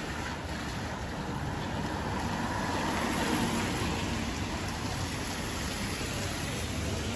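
Steady rain on a city street, with a car's tyres hissing on the wet road, swelling a little about midway as it passes.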